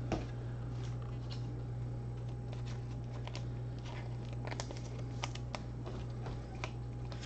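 Faint, irregular light clicks and taps, about a dozen spread unevenly, over a steady low electrical hum.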